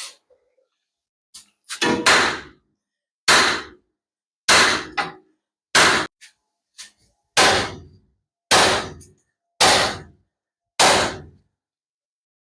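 Hammer blows on the steel front-end parts of a 1990 Chevy Silverado: eight heavy strikes about a second apart, each ringing briefly, with a few lighter taps between, to break a tapered steering or suspension joint stud loose.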